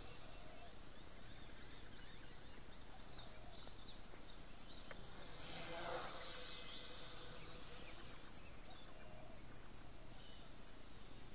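Small JJRC H5P toy quadcopter's propellers whirring faintly, swelling to a louder whir about six seconds in as it passes close by, then fading again.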